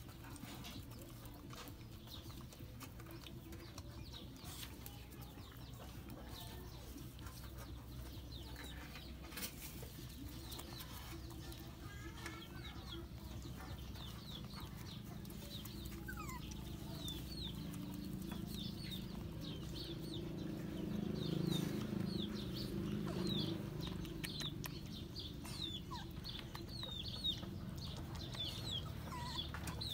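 Birds chirping in the background, many quick high chirps that come thicker in the second half. Under them a low rumble swells about two-thirds of the way through.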